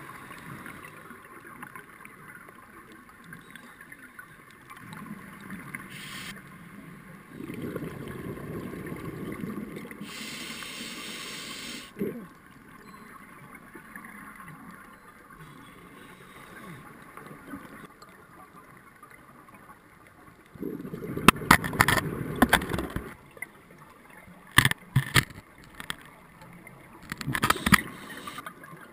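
Underwater sound through a GoPro housing: a scuba diver's exhaled regulator bubbles gurgling in surges of two or three seconds, three times, with sharp clicks near the end.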